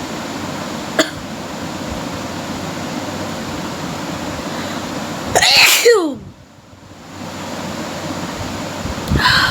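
A woman sneezes once, loudly, about five seconds in, the sneeze falling in pitch at its end, over a steady hiss. A small click comes about a second in, and a short noisy breath-like sound comes near the end.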